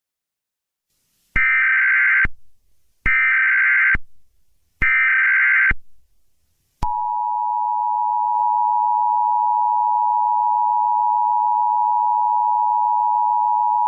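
Emergency Alert System tones: three short bursts of SAME header data, each about a second long and a second apart, then the steady two-tone attention signal (853 and 960 Hz) starting about seven seconds in.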